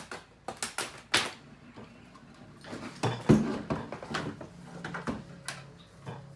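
Hands handling electrical cable at an outlet box: a quick run of sharp clicks and scrapes, with a heavier knock about three seconds in.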